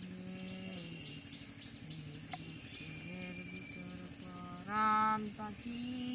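Birds chirping and calling over a steady high insect drone, with a louder, harmonically rich call about five seconds in.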